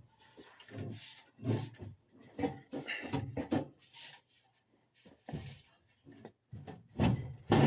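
Furnace blower assembly being worked free of its cabinet: irregular scraping, rubbing and knocking of sheet metal in short bursts, with brief pauses between them.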